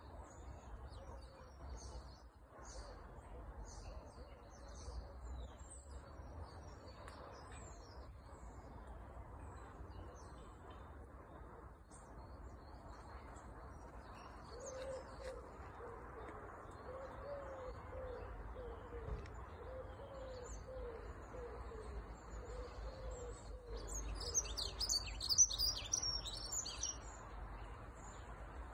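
Dunnock singing: a short, fast, high warble near the end, the loudest sound here, with scattered high chirps from small birds throughout. In the middle a dove coos a run of low, repeated notes, over a steady low rumble.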